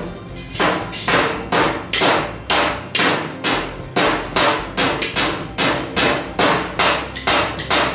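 Hammer striking a door frame of bent galvanized sheet iron: steady blows about two a second, each ringing briefly.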